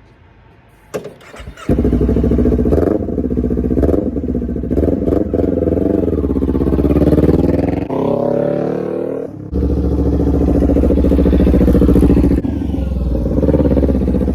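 Kawasaki Ninja 400's parallel-twin engine cranked and started about a second in, then running loudly, its revs rising and falling in the middle before settling back to a steady run.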